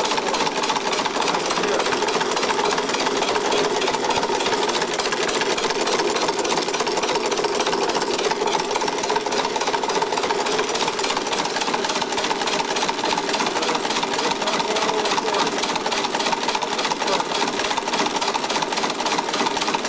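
Homemade two-stage compressed-air engine, converted from a two-stage air compressor, running with a rapid, steady clatter. The clatter comes from its heavy valve springs knocking the valves against the cams.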